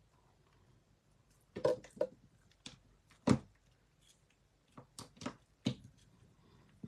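Short handling clicks and taps of paper-crafting work: die-cut cardstock pieces being pressed onto a card and a clear acrylic stamping block being handled and set down on the cutting mat. There are about eight light taps, the sharpest a little past three seconds in.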